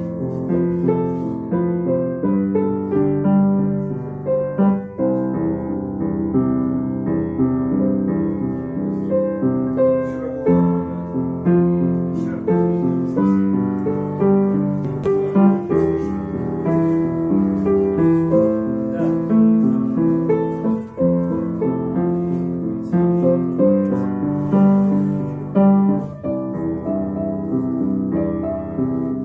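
Lirika upright piano being played: a continuous flow of notes and chords, mostly in the middle and lower-middle range, without a pause.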